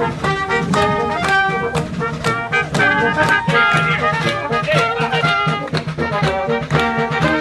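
Lively brass music with a steady beat, horns playing a bouncy tune with a sliding note about three seconds in.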